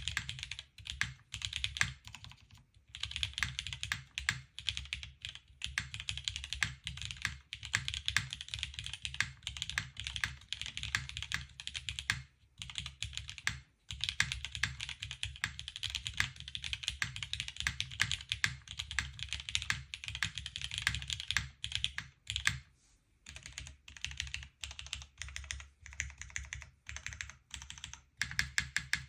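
Typing on a TGR Jane V2 CE custom mechanical keyboard with Vintage Black WG switches on a polycarbonate plate and GMK doubleshot keycaps: fast continuous key presses in runs with brief pauses, each keystroke a click over a low thock.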